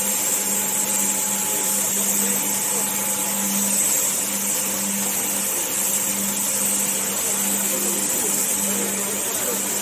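Hose-fed spray gun hissing steadily as it sprays coating over a vacuum-process casting mold, starting right at the beginning. Underneath, a steady machinery hum swells about once a second.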